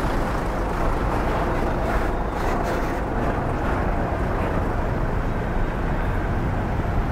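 Steady low rumble of bus engines running, mixed with general bus-terminal traffic noise.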